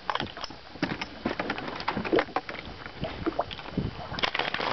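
Irregular knocks, clunks and light water sounds in a small fishing boat, with a few heavier thumps near the end.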